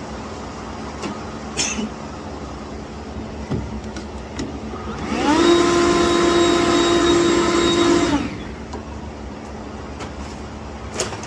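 A small electric vacuum spins up about five seconds in, runs steadily for about three seconds and shuts off, sucking leaves and debris out of a car's air filter box. A few light clicks and knocks come before and after.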